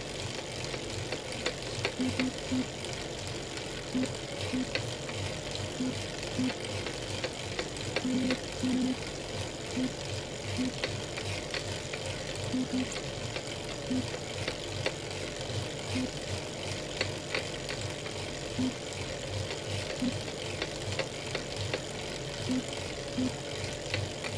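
Elite Real Turbo Muin B+ direct-drive fluid trainer spinning under pedalling, with a steady whine, a low pulse about twice a second and repeated sharp clicks scattered through it. The clicks are the cracking noise the trainer makes at any cadence once power goes over about 200 watts.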